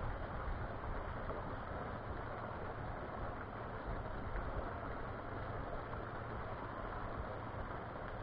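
Small waterfall pouring into a garden pond: a steady, even rush of splashing water.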